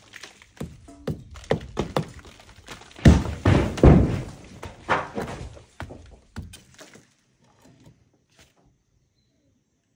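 Hammer striking a chisel into old brickwork, chipping at brick and mortar in a run of sharp blows, heaviest and most crowded about three to four seconds in. The blows stop about seven seconds in.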